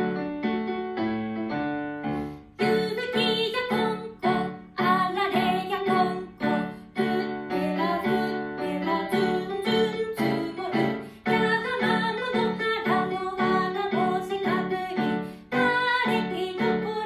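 A woman singing a Japanese children's song to a Casio digital keyboard playing steady, rhythmic chords. The keyboard plays alone for about the first two seconds before the voice comes in.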